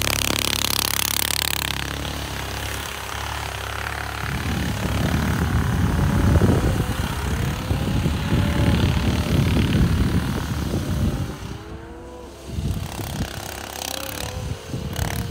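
Home-built tracked snowmobile's engine running as the machine drives across the snow, its pitch rising and falling with the throttle. It dips in loudness briefly about two-thirds of the way through, then picks up again.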